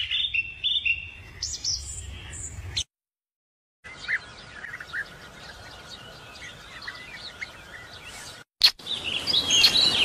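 Small birds chirping and calling in quick, high, rapid notes, heard across several spliced stretches, with a second of dead silence about three seconds in and a brief dropout with a click near the end. A faint steady tone runs under the calls in the middle stretch.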